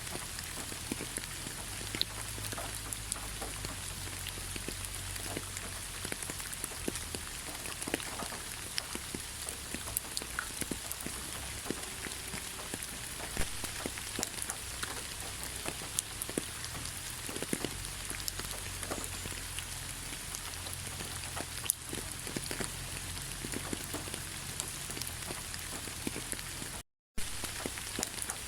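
Steady rain falling in a forest: a constant hiss with many separate drops ticking, over a faint low rumble. The sound cuts out completely for a split second near the end.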